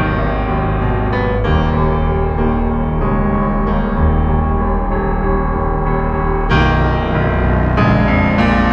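Keyboard music in a piano or electric-piano sound: sustained chords, with new notes struck every second or two.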